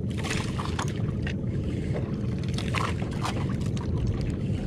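Water lapping and splashing irregularly against an outrigger boat's hull, over a steady low rumble.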